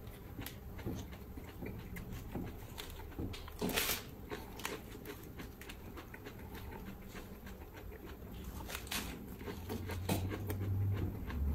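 Leaves torn from a head of raw lettuce and crunched while being eaten: irregular crisp snaps and chewing, loudest about four seconds in and again near the end.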